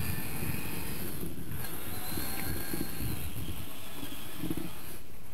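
Radio-controlled pickup truck driving across concrete, towing a wheeled baby seat. A faint, thin electric-motor whine sits over an uneven rumble of small wheels rolling.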